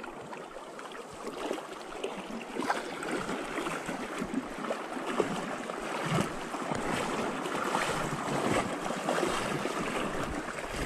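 Shallow river water rushing and splashing around legs wading through a riffle, with short splashes scattered throughout.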